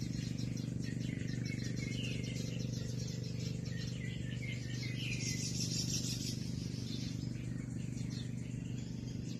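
Birds chirping and twittering in quick repeated calls, over a steady low hum.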